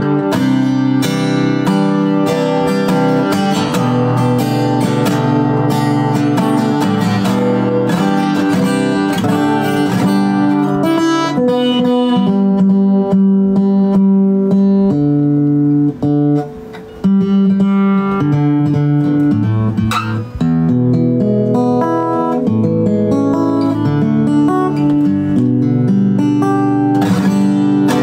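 Acoustic-electric guitar being played, chords strummed and left ringing, with a short break about sixteen seconds in.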